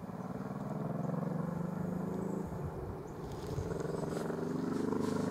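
An engine's low, steady drone with a pitched hum, easing off about two and a half seconds in and building again, with a few faint clicks in the second half.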